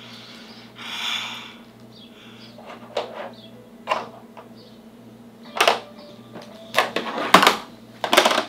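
Plastic play-dough tools knocking and clacking against a tabletop: a scattered series of sharp knocks, louder and closer together in the second half. A short soft hiss comes about a second in.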